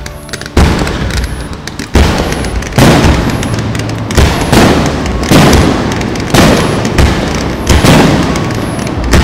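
Aerial firework shells bursting: a string of about eight loud booms, roughly one a second, each followed by a fading tail.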